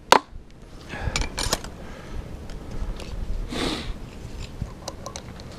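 Light clicks and taps from layout tools being handled, with one short scraping rub about three and a half seconds in, as a layout line on the floor deck is marked over to darken it.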